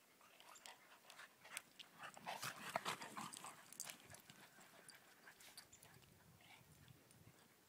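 Two dogs running and playing in snow: faint panting with a flurry of short crunching scuffs, busiest and loudest two to four seconds in, then tailing off.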